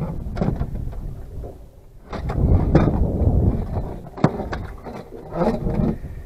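Wind rumbling on the microphone, with a few sharp knocks and thumps from the landing net and the netted fluke shifting on the boat's deck.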